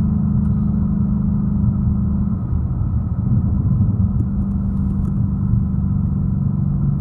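2019 Mustang Bullitt's 5.0-litre V8 droning steadily at cruise, heard from inside the cabin. The engine note breaks up briefly about two and a half seconds in, then settles again at a slightly lower pitch.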